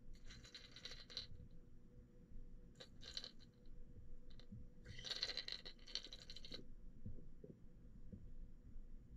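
Three bursts of fine, fast rattling clicks heard underwater, each lasting about a second, from a sinking minnow lure's internal rattle as the lure is retrieved through the water. A low, steady underwater rumble runs beneath.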